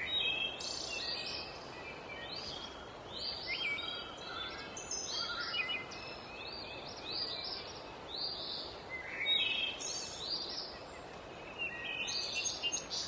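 Several songbirds singing together in quick, overlapping short chirps and trills, over a steady background hiss.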